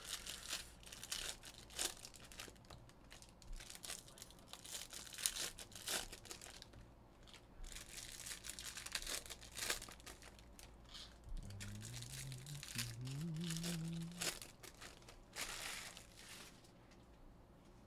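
Foil wrappers of 2022 Bowman Jumbo baseball card packs crinkling and tearing as the packs are ripped open, in a run of short, irregular rustles. About twelve seconds in, a low hum rises in pitch for a couple of seconds.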